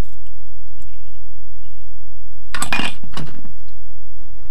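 Metallic clinks and clatter about two and a half seconds in, with a smaller clink just before the end, as the Ferrex CCT18GW cordless nailer's magazine is opened and a strip of 40 mm staples comes out onto the wood while a staple jam is cleared.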